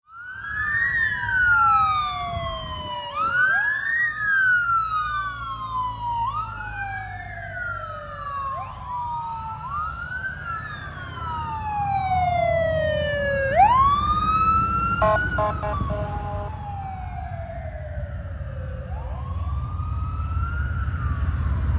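Police sirens of a vice-presidential motorcade escort, several wailing at once in overlapping rising and falling sweeps, with a short burst of rapid pulsing tones about 15 seconds in. Vehicles rumble steadily underneath, getting louder near the end.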